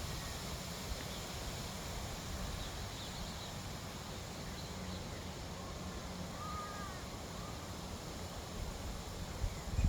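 Wind rumbling on the microphone, with faint bird calls in the background, among them a crow-like caw about six seconds in; the rumble grows stronger near the end.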